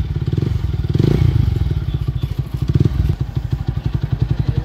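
TVS Apache RTR 160 4V's single-cylinder engine idling through an aftermarket Akrapovic-style slip-on muffler with its dB killer removed. The exhaust pulses come in a steady rapid train, with a small throttle blip about a second in.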